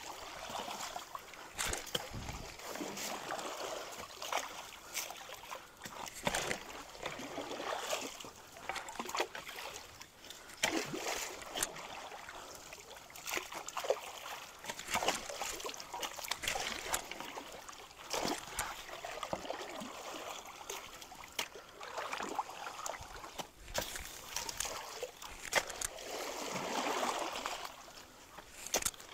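Creek water splashing and sloshing as people wade and jab poles into a debris clog, with many short sharp splashes scattered over steady running water.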